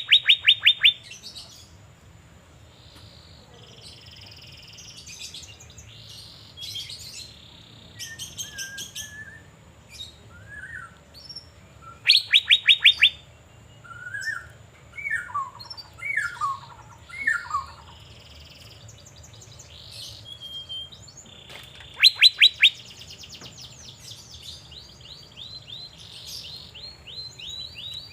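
Asian fairy-bluebird (cucak biru) singing actively: loud bursts of rapid, evenly repeated sweeping notes come about every ten seconds, with softer varied chirps and short falling whistles in between.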